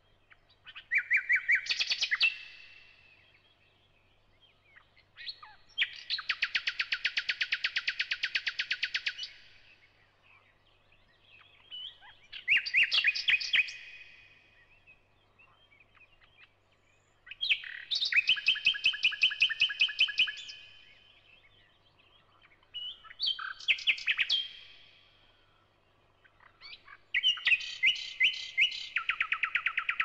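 Thrush nightingale (Luscinia luscinia) singing in separate phrases a few seconds long with short pauses between: fast runs of repeated whistled notes and clicks, one of them a long, even rattle.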